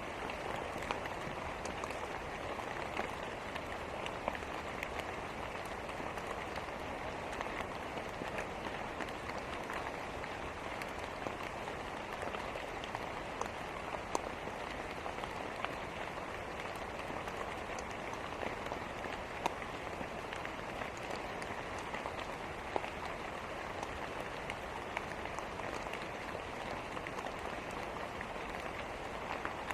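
Steady rain, with scattered sharp crackles and pops from a wood fire in a fireplace.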